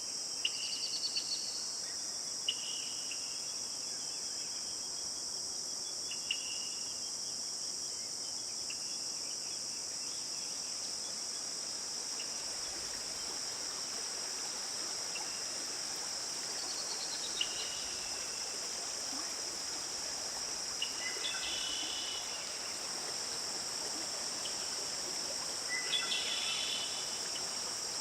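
Steady high-pitched insect chorus, with short bird calls now and then: several in the first few seconds and small clusters later on.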